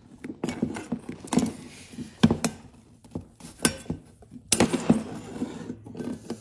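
Pliers working at a steel muffler retaining spring and safety wire on an exhaust pipe: scattered sharp metal clicks and clinks, a few louder ones through the middle, with handling noise between.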